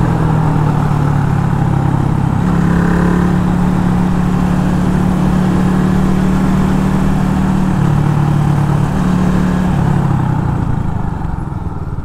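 Geon Scrambler 250's single-cylinder engine running while riding. The engine note steps up a couple of seconds in, drops twice later on, and eases off near the end.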